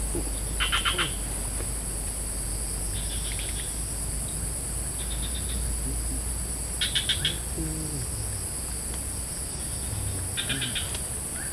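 Steady high-pitched drone of insects, with short rapid pulsed trills breaking in every two to three seconds.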